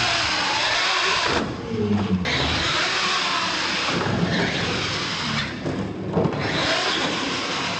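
RC monster truck's electric motor and drivetrain whining under throttle as it runs across concrete and launches off a ramp. The whine cuts out twice, briefly, about a second and a half in and again around six seconds, as the throttle is let off.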